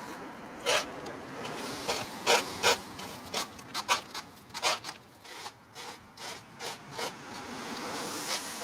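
A hand tool rasping and scraping against wood in short, irregular strokes over a steady hiss, the kind of work done on timber during fence repair.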